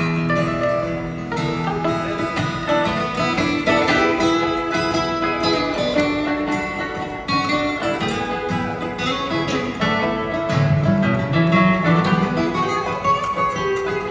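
An acoustic guitar and a mandolin playing a blues tune together, plucked notes moving quickly over a steady rhythm.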